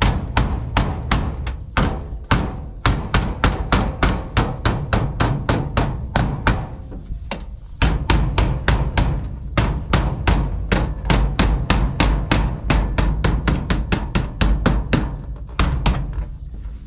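Claw hammer tapping quickly on the edge of a sheet-metal chimney flashing laid on a metal roof, about three to four blows a second, with a short pause about seven seconds in. The blows are shaping the flashing's edge down to fit the roof.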